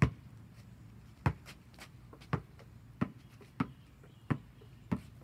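A basketball bouncing on an asphalt driveway, dribbled: seven sharp bounces, the first few unevenly spaced, then a steady rhythm of about one and a half bounces a second.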